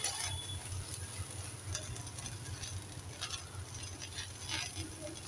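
Aloo paratha cooking on a ghee-greased iron tawa: a faint sizzle with a few scattered crackles over a low steady hum.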